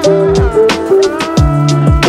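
Background music with a beat: deep kick drums that drop in pitch, sharp snare or clap hits, and held synth notes.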